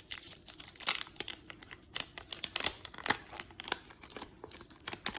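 Wax-paper wrapper of a trading card pack crinkling and tearing as it is opened by hand, in irregular sharp crackles.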